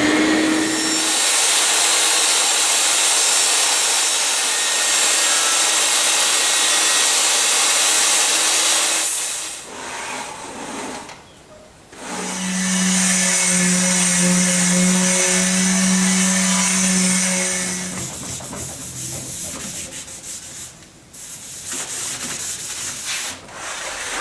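DeWalt jobsite table saw spinning up, then running loud as its blade cuts through the plywood base of a crosscut sled; the noise stops about nine seconds in and a second loud stretch of motor and cutting runs for about six seconds. Near the end come quieter scraping and sliding sounds of the plywood sled moving on the waxed saw table.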